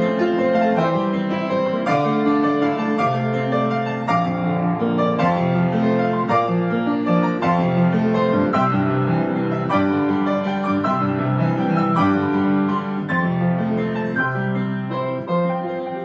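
Piano music: a melody over sustained chords that change about once a second.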